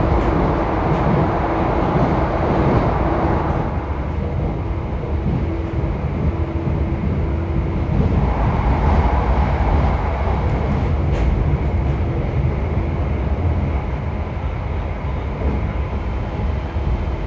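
JR Hokkaido 731-series electric train car MoHa 731-109 running, heard from inside: a steady rumble of wheels on rail with the car's traction-motor roar, with a steady hum over it for the first several seconds. The roar comes from a faulty motor on the car's Otaru-end bogie and sounds like an old nose-suspended (tsurikake) motor.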